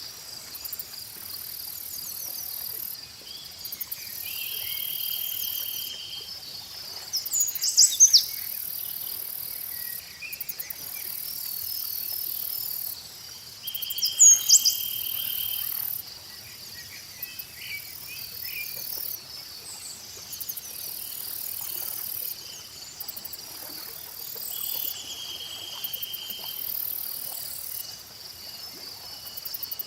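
Insects and crickets chirping steadily in a high-pitched chorus, with a few bird chirps; the two loudest are short, quick calls about 8 and 14 seconds in.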